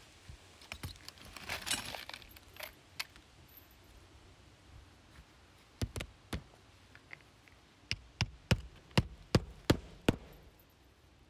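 Hammer driving a roofing nail through a pipe flashing into asphalt shingles: a few light taps to start the nail about six seconds in, then a run of about seven sharp blows near the end, roughly three a second.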